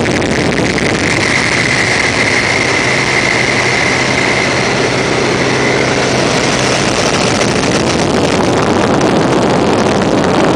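Antique biplane in flight: the engine drones steadily under a heavy rush of air over the open cockpit.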